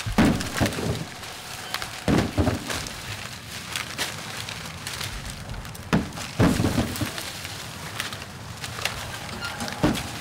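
Ears of corn, picked and husked by hand, thrown against a wagon's bang board and thudding into the wagon box several times at irregular intervals, over the crackling rustle of dry husks and cornstalks.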